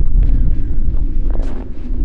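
Wind buffeting the microphone: a loud, steady low rumble, with a few faint high squeaks and clicks over it.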